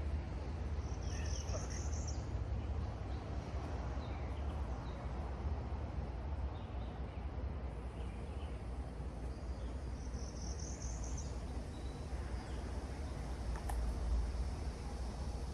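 Outdoor ambience with no chainsaw running: a steady low rumble and a short high pulsing trill heard twice, typical of an insect.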